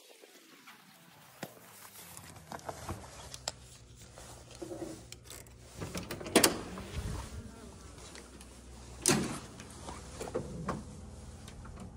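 Hotel room door being unlocked with a key card and opened. A sharp latch click comes about six and a half seconds in, another loud click about three seconds later, and smaller clicks and handling noises around them.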